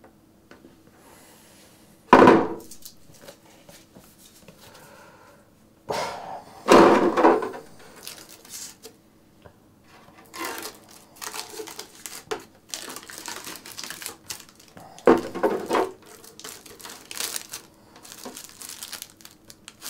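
A hollow painted polycarbonate RC truck body being handled on a desk. It knocks and thumps loudly three times, about two, seven and fifteen seconds in. In the second half come smaller scrapes and the crinkle of its clear protective film being peeled off.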